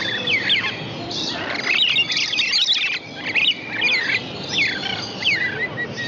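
Lorikeets calling: many short, high-pitched chirps that slide up and down in pitch, overlapping one another without a break.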